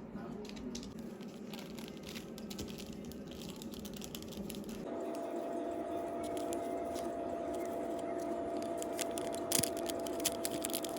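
Crinkling, clicking handling noises. About five seconds in, a steady hum joins and runs on under them.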